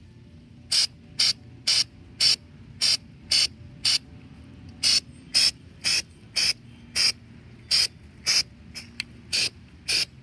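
Aerosol can of Rust-Oleum textured spray paint fired in short bursts, about two a second, each a brief hiss of about a quarter second.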